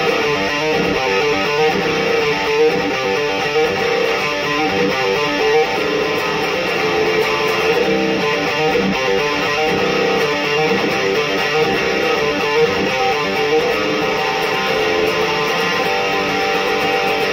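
Electric guitar through a Black Cat Amps Djenttonic distortion pedal, playing a heavy chugging riff without a break.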